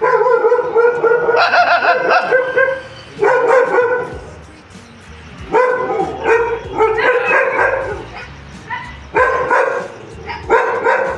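Dog barking and yipping in about eight bursts of rapid, high-pitched barks, each lasting around a second, with short pauses between.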